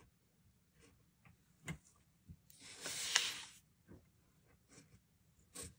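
A Pilot Custom 743 fountain pen's soft fine nib writing on paper: faint scattered nib strokes and taps, with one longer, louder scratch of the nib across the paper lasting about a second, midway through.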